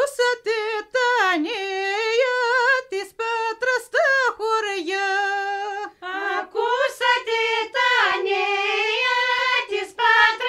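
A woman's high voice singing a Greek folk song unaccompanied, a held melody with ornamental bends and turns, in phrases broken by short breaths about a second, three seconds and six seconds in.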